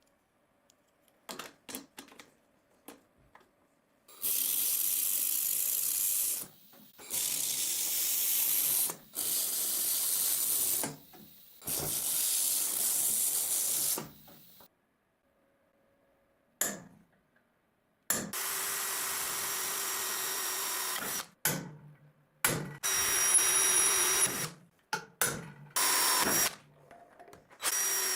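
Power tools running in several separate bursts of two to three seconds, each a harsh hissing rush. The later runs carry a steady motor whine, with short knocks in between.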